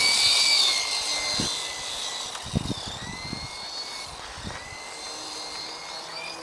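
Small battery-powered remote-control helicopter whining at a high pitch. Its pitch rises just before this moment and is loudest in the first second, then holds a little lower with slight wobbles as it hovers. Short low gusts of wind buffet the microphone now and then.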